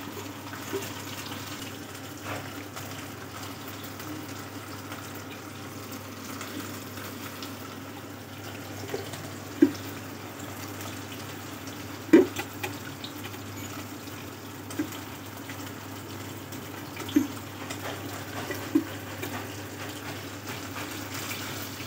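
Semolina-coated fish sizzling steadily as they shallow-fry in oil in a pan, over a steady low hum. A few sharp knocks cut in, the loudest about twelve seconds in.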